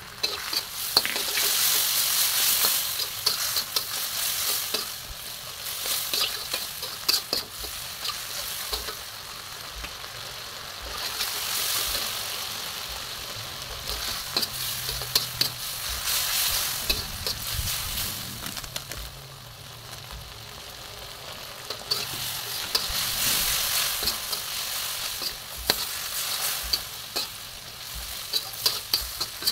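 Diced pork frying in oil and soy sauce in a wok, sizzling in waves that swell each time it is stirred. A metal spatula scrapes and clicks against the wok throughout.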